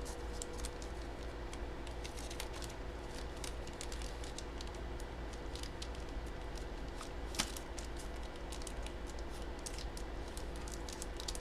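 Faint, irregular small clicks and handling noises over a steady low hum, with one sharper click about seven seconds in.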